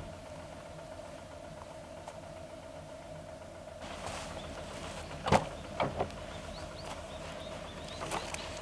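SUV rear door unlatched and swung open with a sharp click about five seconds in, followed by two lighter knocks as it is handled, over a steady faint hum.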